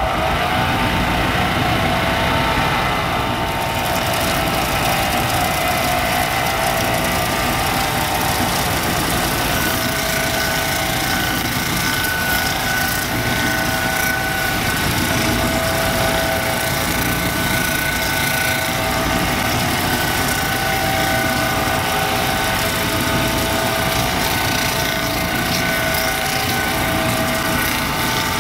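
Electric motor of a homemade lapidary polishing machine winding up to speed right at the start, then running steadily with a constant whine. From a few seconds in, a hiss of grinding joins as a chrysocolla nugget is held against the wet 400-grit wheel.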